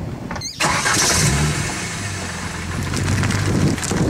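Car engine running as the car drives slowly, with a brief rise in revs, over wind and road noise on the camcorder microphone. The sound drops out for a moment about half a second in.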